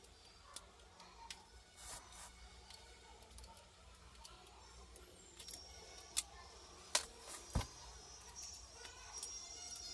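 Scattered light metallic clicks and taps from hand tools and small parts being handled, with three sharper clicks about six to eight seconds in.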